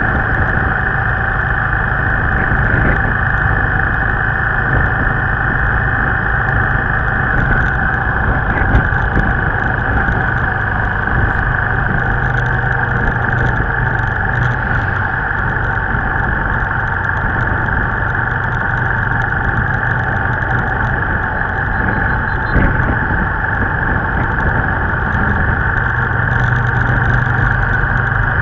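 Steady road noise of riding along a highway: a continuous engine hum with wind and tyre rush, as heavy trucks and a bus pass close alongside.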